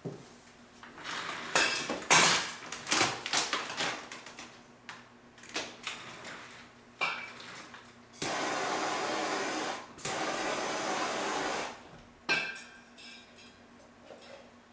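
Vinyl wrap film crackling as a squeegee scrapes over it, in sharp bursts. Then a heat gun blowing with a steady hiss for about three and a half seconds, broken briefly in the middle, followed by a knock and more crackling of the vinyl.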